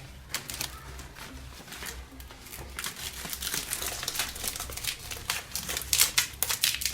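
Banana leaves crackling and rustling as they are folded and tucked over matooke in a saucepan: many quick crinkles, sparse at first and busier and louder through the second half.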